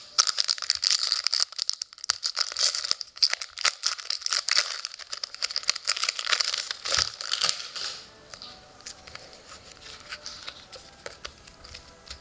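Foil wrapper of a hockey trading-card pack crinkling and tearing as it is ripped open by hand, a dense run of crackles that dies down about eight seconds in to faint handling of the cards.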